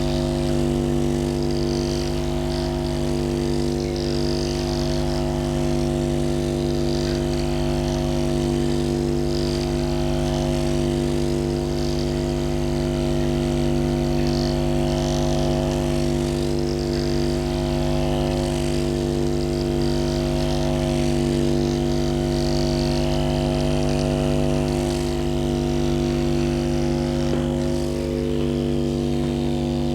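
Handheld electric vibration massager running steadily against the patient's muscles: a constant motor buzz made of several held tones.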